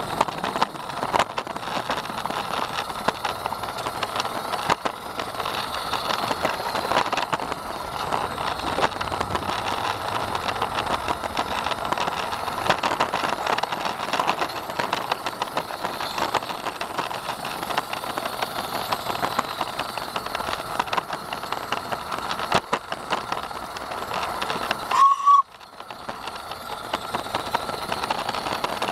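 Small 16mm-scale garden railway train running along SM32 track, heard from on board: a dense, irregular rattle and clatter of wheels on rail. A brief squeal about 25 seconds in.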